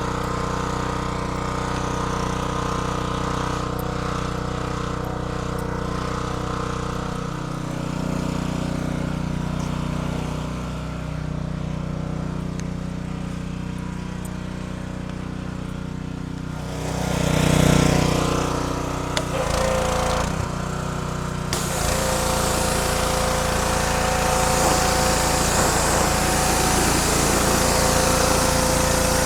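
Gas pressure washer's small engine running steadily; about two-thirds of the way through, a loud hiss of water spray joins it.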